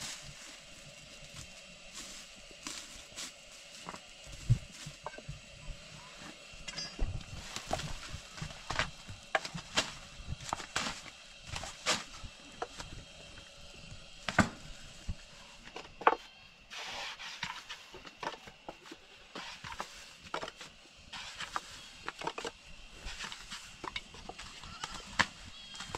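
A long thin wooden rolling pin knocking and clacking irregularly against a low round wooden board as thin flatbread dough is rolled out and wound onto the pin.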